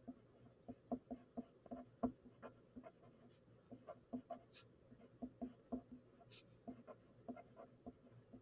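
Pencil writing on a paper worksheet: faint, quick, irregular taps and scratches of the lead on the page, about three a second, as words are handwritten.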